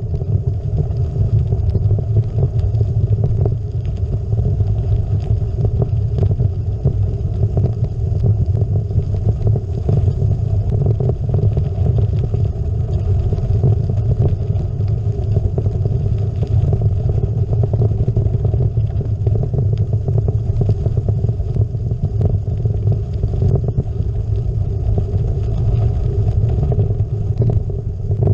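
Gravel bike rolling fast over a gravel road, heard through a bike-mounted GoPro: a steady low rumble from the tyres and frame with scattered small clatter from loose gravel and rattling parts.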